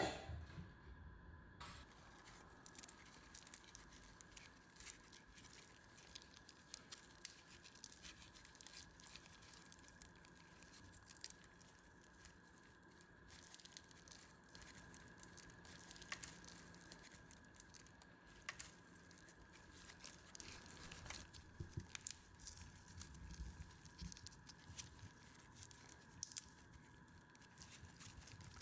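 Raw shrimp being peeled by hand: faint, irregular crackling and tearing of the thin shells, in many small clicks.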